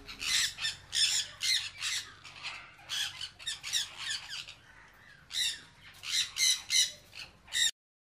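A flock of sun conures screeching, in a rapid run of harsh, high calls. There is a lull of about a second midway, and the calls break off abruptly near the end.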